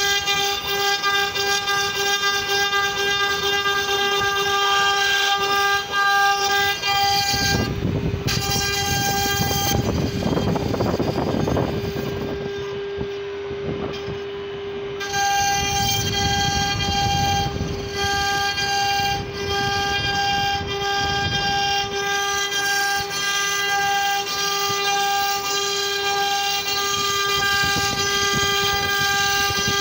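CNC wood router spindle running with a steady high-pitched whine while the bit carves a relief pattern into wood, with rough cutting noise underneath. The whine's higher overtones thin out for a few seconds about a third of the way through, then come back.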